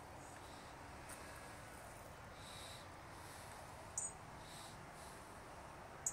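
Quiet outdoor background with a few short, high chirps from small birds, one about four seconds in and one at the end.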